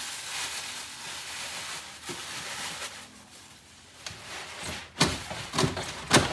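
Packaging rustling and scraping while a heavy heat press is handled in its box, then several sharp knocks near the end, the loudest at about five and about six seconds in.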